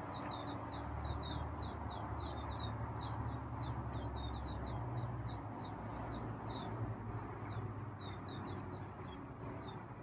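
Birds chirping in a fast, unbroken series of short, high chirps that slide downward, about four or five a second. The chirping almost sounds electronic. A low steady hum sits underneath.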